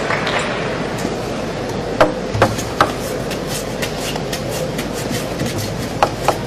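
Table tennis ball clicking sharply off bats and table, three quick clicks about two seconds in and three more near the end, over a steady murmur of the arena crowd.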